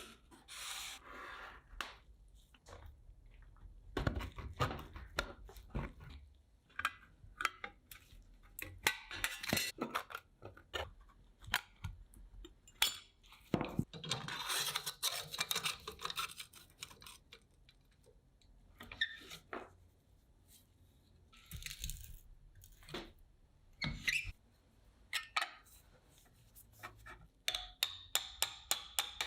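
Hand work on the small parts of an antique pencil sharpener: irregular stretches of scraping and rubbing, broken by sharp clicks and knocks. Near the end comes a fast run of even ticks.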